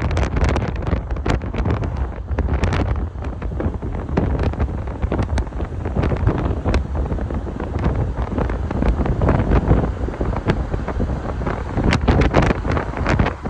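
Wind buffeting the microphone in uneven gusts, a heavy low rumble.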